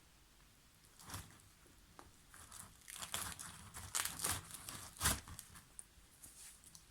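Naan bread being torn apart by hand, a run of irregular crackly rips and rustles for a few seconds.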